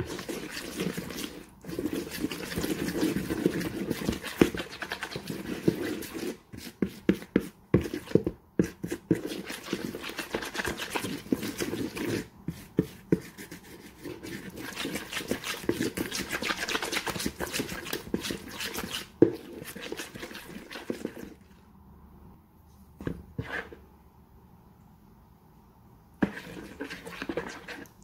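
A metal spoon stirring a thick flour-and-spice paste in a bowl: steady wet scraping and squelching with frequent small clicks of the spoon against the bowl. It stops about three quarters of the way through, leaving only a few brief stirs near the end.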